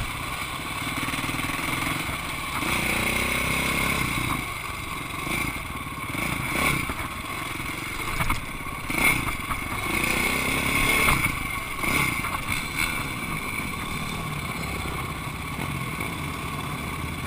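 Flat track motorcycle engine running at low speed, with the throttle opened briefly a few seconds in and again about ten seconds in, its pitch rising each time. Scattered knocks and rattles of the bike over rough ground.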